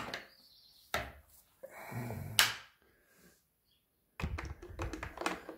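Hands working the plastic tool-less tank cap on a new Stihl MS 462 C-M chainsaw: sharp clicks and knocks, one louder snap about two and a half seconds in, then a run of small rattling handling noises near the end.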